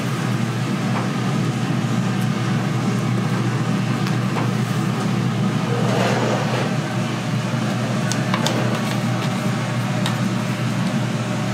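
Steady low machine hum, with a brief rustle about six seconds in and a few light clicks near the end.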